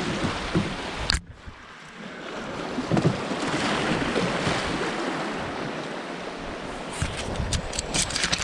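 Brook rapids rushing and churning around an open canoe, a steady noisy wash that drops out abruptly for under a second about a second in. Near the end comes a run of short scratchy clicks as overhanging branches brush along the canoe.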